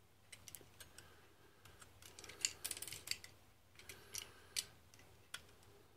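Hobby knife blade scraping mould lines and flash off a small plastic miniature part. Faint, scratchy clicks come in short clusters, busiest around the middle and again about two-thirds of the way in, with one sharper click near the end.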